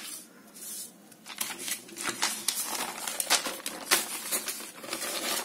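Paper sheets rustling and crinkling as handwritten pages are handled and turned, a string of short crisp rustles.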